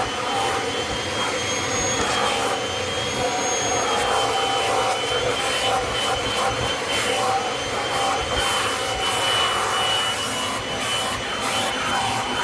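Kirby Avalir vacuum running in compact mode, its motor holding a steady high whine while the hose attachment scrubs and sucks over the carpeted cat tree.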